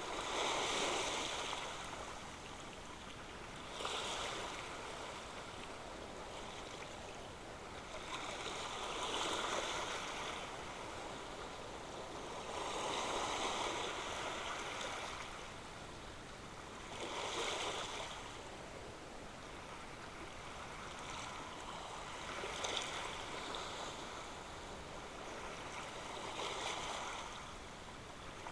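Ocean waves breaking and washing up the shore, a steady rush of surf that swells about every four seconds and fades between the breakers.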